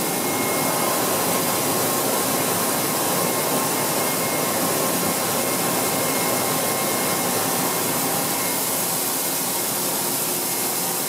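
Coolant wash of an Okuma Multus B300-W multitasking turning center spraying and splashing inside the machine's enclosure during a dry run: a steady hiss with a faint steady whine under it.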